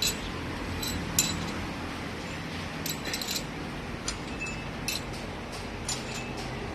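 Light metallic clinks and taps of tools or metal parts being handled, about a dozen at irregular intervals, some with a short high ring, over a steady low hum.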